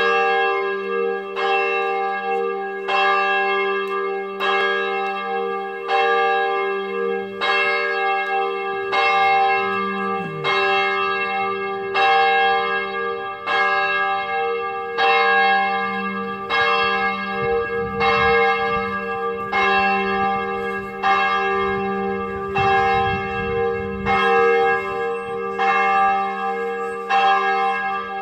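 Church bells in the abbey bell tower ringing, with a stroke about every second and a half. The ringing tones hang on between strokes.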